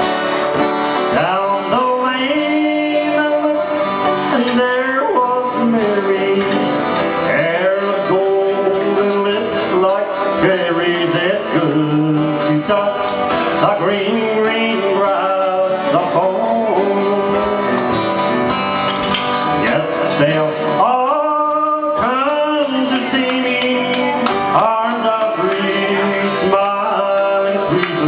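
Live music: two acoustic guitars playing while a man sings into a microphone.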